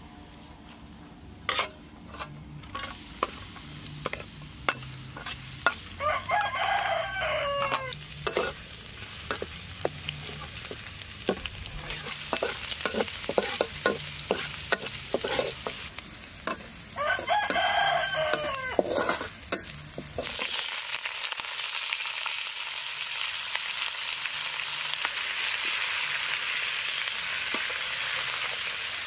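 Chopped garlic frying in oil in a wok, with a metal spatula scraping and clicking against the pan as it is stirred. A rooster crows twice, about six and about seventeen seconds in. About twenty seconds in a louder, steady sizzle starts as raw chicken feet go into the hot oil.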